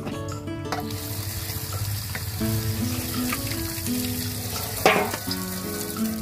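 Water splashing and running off as pork intestines are rinsed in a woven bamboo basket dipped in a stainless-steel basin, the water draining out when the basket is lifted. Acoustic guitar music plays behind it, and there is a single sharp knock about five seconds in.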